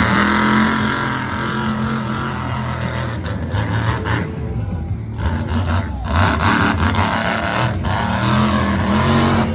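Monster truck engine revving hard as the truck drives through the mud and over a dirt ramp, its pitch rising and falling with the throttle several times.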